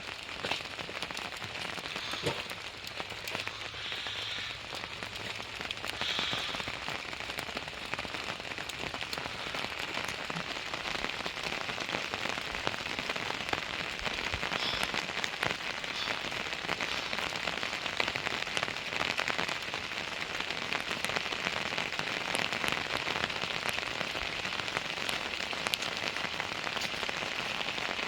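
Steady rain falling, with the fine ticks of many individual drops striking a surface.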